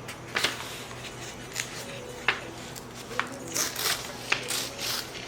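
A few sharp, irregularly spaced clicks and short rustles of objects being handled, over a steady low hum.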